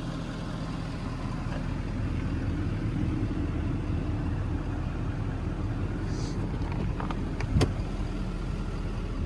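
Ford 6.7 Power Stroke V8 diesel idling steadily, with a brief hiss about six seconds in and a sharp click about seven and a half seconds in.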